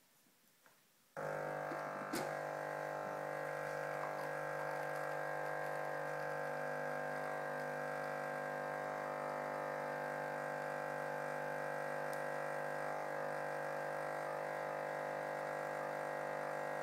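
Pronto ME707 fully automatic coffee machine's pump cutting in about a second in and running with a steady hum while it brews coffee through the spout, with a single click just after it starts.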